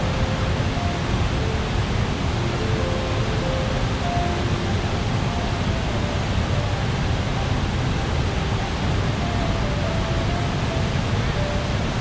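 Steady rushing roar of a wide waterfall of white-water rapids, with a faint, soft melody of single held notes drifting over it.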